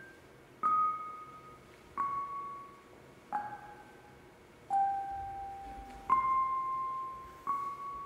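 Tuned percussion struck slowly, one ringing bell-like note about every second and a half, six notes in all. The pitch steps down over the first four notes and then climbs back up.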